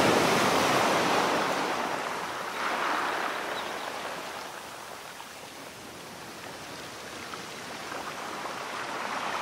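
Surf washing onto a sandy beach: a steady hiss that swells and eases, loudest at the start, with smaller rises about three seconds in and near the end.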